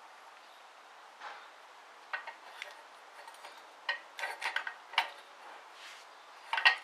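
Metal tools and parts clinking and tapping against the metal internals of a TH350 automatic transmission during teardown: a few light clinks at first, a quicker run of sharper ones about four to five seconds in, and the loudest clinks near the end.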